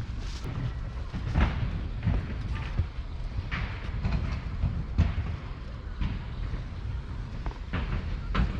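Cruiser skateboard wheels rolling over pavement: a steady low rumble broken by occasional sharp knocks.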